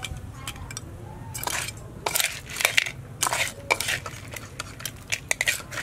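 Metal spatula scraping and clinking in a steel wok as whole fried crabs are scooped out and piled onto a ceramic plate, the hard shells crackling and clattering. The sounds come as short irregular bursts that grow busier about a second and a half in.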